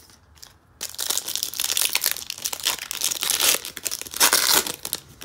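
Foil wrapper of a 2018 Optic football card pack being torn open and crinkled by hand. The dense crackling starts about a second in and is loudest toward the end.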